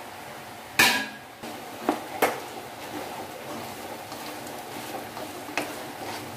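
A spatula stirring and knocking against a pan of chopped onions frying in hot oil. There is one loud clatter about a second in, then a few sharper knocks against the pan.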